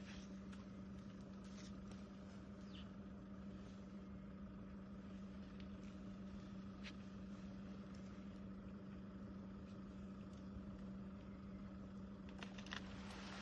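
Low, steady hum of an idling vehicle engine, with a few faint snaps as an elephant works at a tree. Near the end comes a short burst of crackling, like branches being broken.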